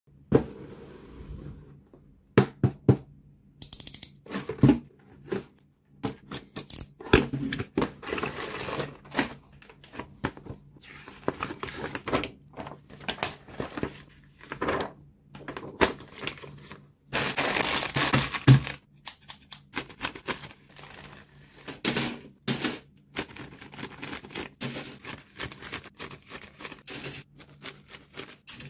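Unboxing a plastic model kit by hand: plastic sprue bags crinkling and rustling, paper and cardboard handled, with many light clicks and taps of plastic parts on a table, and a longer stretch of rustling about two-thirds of the way through. Near the end, scissors cut a plastic bag open.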